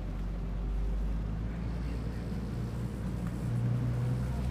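Engine of a sightseeing boat running steadily at low speed, a low hum.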